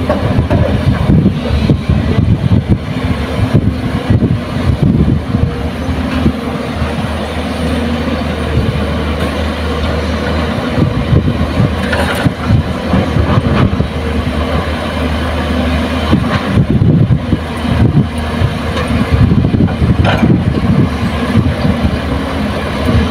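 Diesel engines of excavators and dump trucks running steadily at work, with irregular knocks and rumbles as soil is dug and loaded.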